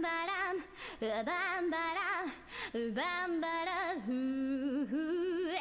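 A woman singing a cappella, a solo voice holding long notes with wide vibrato, in several phrases with short breaths between them.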